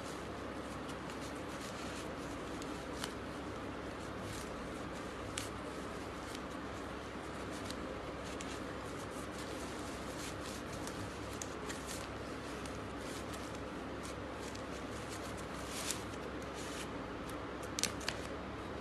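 Rustling of a folded umbrella canopy and small clicks and knocks of its plastic bottle-shaped case as it is handled, over a steady hiss; a few sharper clicks near the end.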